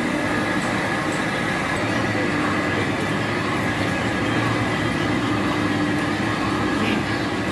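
Machine-shop machinery running steadily, with lathes and electric motors making a continuous din: a steady low hum and a higher whine over a noisy wash.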